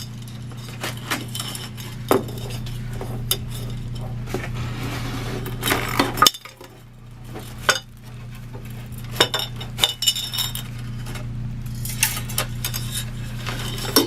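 Ceiling fan parts clinking, tapping and knocking as they are handled and fitted together, in irregular strokes over a steady low hum.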